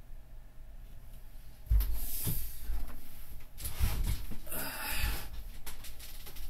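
A sudden thump about two seconds in, then irregular rustling and knocks as a person moves about close to the microphone and settles into a chair.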